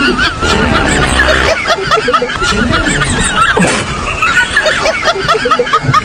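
Snickering laughter: many short, high-pitched giggles, rising and falling and overlapping one another.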